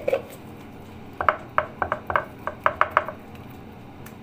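A fork clinking against a bowl in a quick run of about nine taps, beating eggs with yogurt; one single clink comes just before the run.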